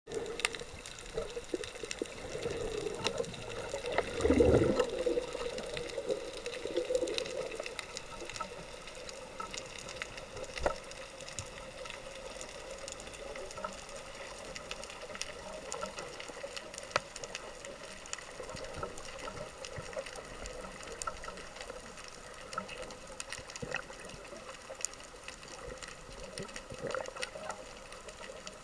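Underwater water noise picked up by a camera mounted on a speargun: a steady low hiss with scattered sharp clicks and crackles, and a louder, deeper swirl of water movement about four to five seconds in.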